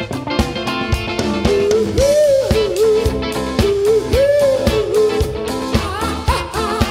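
A live band playing: a melody line of bent, sliding notes over a steady drum beat and bass.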